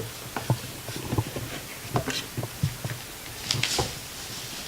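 A cardboard subscription box and the packs inside it being handled: irregular light knocks and taps, with a short rustle about three and a half seconds in.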